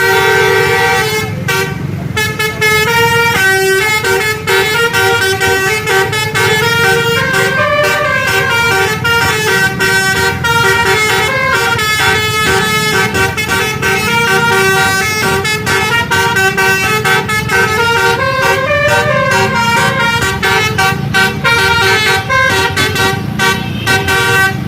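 Bus telolet basuri multi-tone air horn playing a rapid melody of changing notes, over a steady low rumble.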